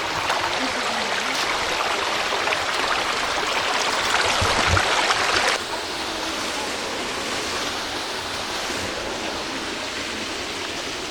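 Steady rush of a creek's flowing water, which drops suddenly to a lower level a little past halfway.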